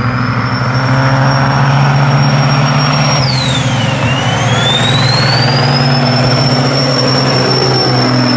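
Diesel engines of loaded semi trucks running hard at full throttle under heavy load, a loud steady drone. Over it a high turbo whistle dips sharply about three seconds in, then climbs back.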